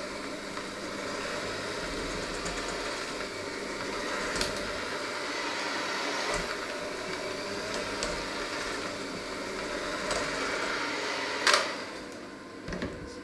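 Electric hand mixer running, its beaters churning a thick mixture in a stainless steel bowl with a steady motor hum. Near the end there is one sharp knock, and the sound drops as the mixer comes out of the bowl.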